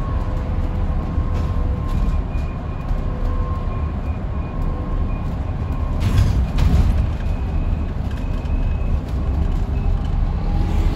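Inside a battery-electric Enviro400EV double-decker bus on the move, heard from the back of the lower deck: steady road and tyre rumble with a faint steady whine. A brief louder burst of noise comes about six seconds in.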